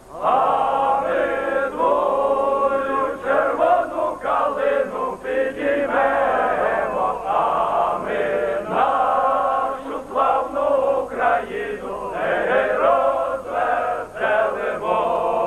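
A group of men singing together in unison, with long held notes and short breaks between phrases.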